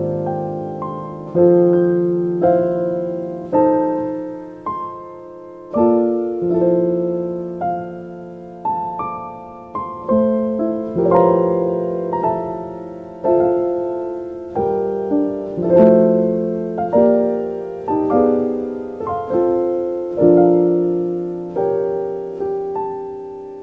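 Soft, slow solo piano music: single notes and chords struck about once a second, each fading away before the next.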